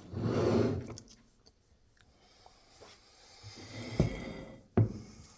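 Handling noise from an antique cast-iron coffee grinder being moved about: a soft rush in the first second, then two sharp knocks near the end, under a second apart.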